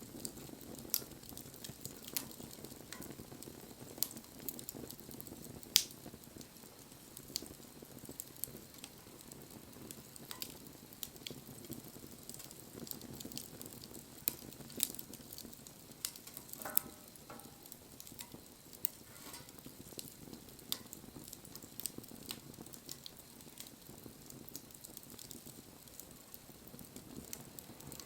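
Wood bonfire crackling: irregular sharp pops and snaps over a low, steady rumble of burning. A brief faint squeak sounds a little past halfway.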